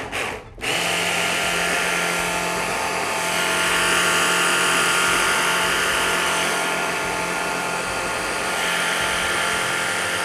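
Electric hand blender on its chopper-bowl attachment running, puréeing chickpeas with tahini and water into hummus. It stops for a moment just after the start, then runs steadily and loudly.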